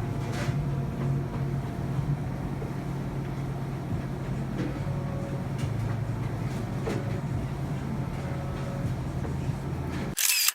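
A steady low mechanical drone, like a running motor, with a few faint clicks; it ends near the end in a short loud burst and then cuts off.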